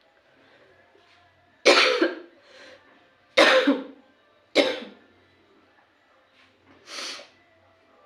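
A woman coughing: three loud, sharp coughs over about three seconds, then a softer cough near the end.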